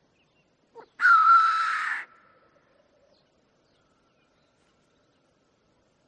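Male black grouse (blackcock) giving one harsh, hissing call of about a second that stops abruptly, the lekking male's display hiss, after a faint short note.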